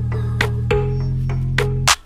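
Background music: sustained bass notes under regular percussive hits, cutting out sharply near the end.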